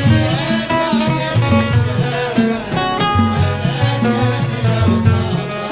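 Instrumental break in a Gulf Arabic jalsa song: a melodic line over moving bass notes and steady hand percussion.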